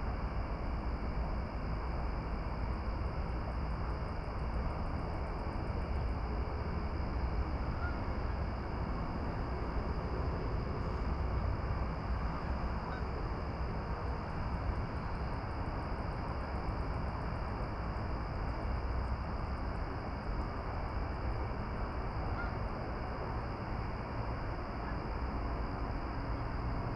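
Steady outdoor ambient noise at dusk: a low rumble with a constant high-pitched hum over it, and a few faint, brief chirps now and then.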